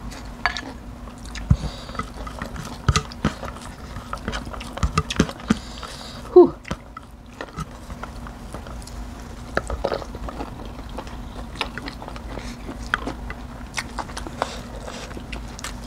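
Two people eating a rice and curry meal close to the microphone: chewing and mouth sounds with frequent small clicks of a spoon and fingers on plates, over a steady low hum. A short vocal sound about six and a half seconds in is the loudest moment.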